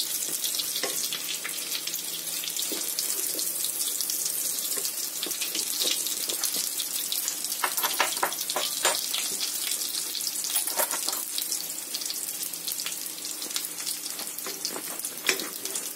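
Vegetable oil sizzling steadily in a frying pan around frying potato pirozhki, with fine crackling and a few louder pops.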